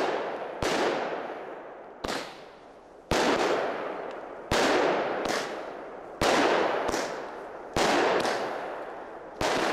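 Aerial firework shells bursting overhead in quick succession: about ten sharp bangs, roughly one a second, each dying away slowly.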